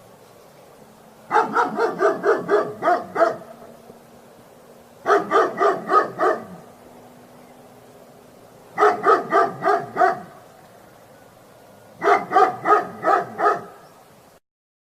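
A dog barking in four quick volleys of about six to eight barks each, a few seconds apart.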